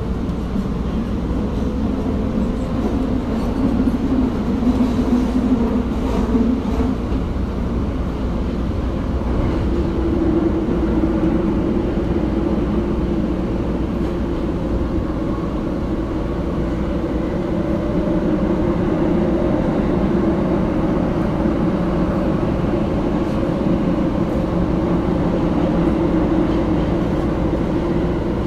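Tokyo Metro Marunouchi Line 2000 series subway train running: a steady rumble of wheels on rail with a humming motor tone that shifts in pitch, settling higher about ten seconds in.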